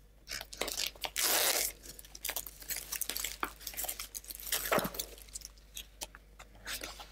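Clear plastic wrapping being torn and pulled off a small cardboard box, crinkling, with light taps and knocks as the box is handled. The loudest stretch of crinkling comes about a second in.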